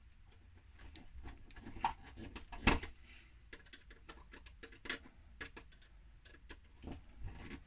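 Small screwdriver tightening the brass earth terminal screw of a plastic ceiling rose: faint irregular clicks and scrapes of the blade in the screw head, with one louder click about two and a half seconds in.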